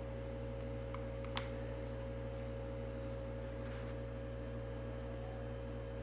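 Steady low electrical hum with several even tones, and a couple of faint sharp clicks about a second in.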